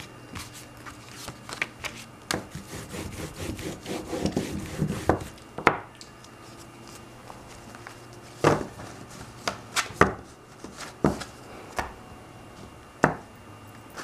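Hands handling and pressing down a card mounted on stiff card stock, paper rubbing against paper, with a quick run of light clicks in the first few seconds and then sharp, separate taps and knocks every second or two as the card is moved and set down on the table.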